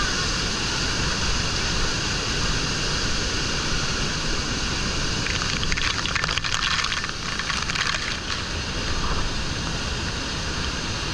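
Water from Niagara's Bridal Veil Falls crashing onto a wooden stairway and deck, a steady heavy rush. A little past the middle, spray pelts the microphone in a crackling spell for about three seconds.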